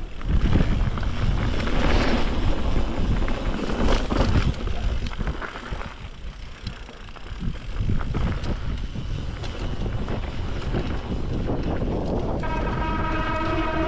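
Mountain bike rattling and rumbling down a rough trail, with heavy wind noise; it eases off briefly around six to seven seconds in. Near the end a steady buzz with several pitches comes in.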